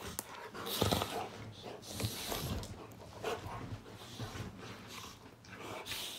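Two dogs play-fighting and mouthing at each other, with a run of irregular dog noises and breathing. The loudest burst comes about a second in.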